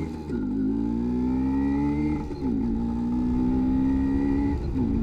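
1986 MZ ETZ 250's single-cylinder two-stroke engine accelerating through the gears: its pitch climbs in each gear and drops back at three upshifts, just after the start, a little past two seconds in, and near the end.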